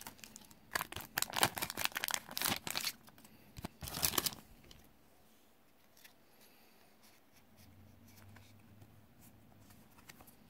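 Foil wrapper of a card booster pack being torn and crinkled, a quick run of crackles for the first four seconds or so. After that only faint rustles as the cards are handled.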